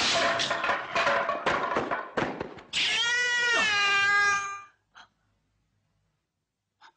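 Dubbed kung fu fight sound effects: a rapid string of punch and kick impacts. Then a drawn-out, wavering cat-like screech of about two seconds, which stops abruptly, followed by quiet with a couple of faint clicks.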